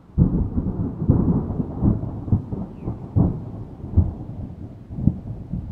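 Thunder rumbling, with irregular sharp cracks through the low rumble.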